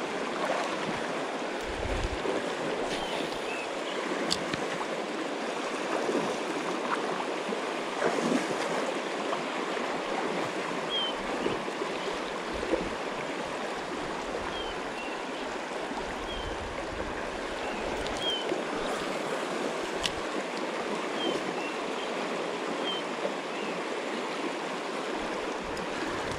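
River water flowing steadily, a constant rushing noise, with a few faint short high chirps scattered through it.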